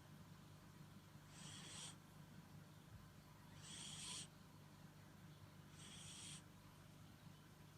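Sleeping dog snoring: three short, high-pitched snores about two seconds apart, each lasting about half a second.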